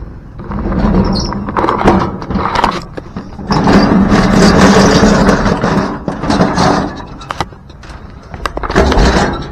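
Loud scraping and knocking of a heavy metal appliance being slid and shifted into place among scrap, in two long drags with sharp knocks between them.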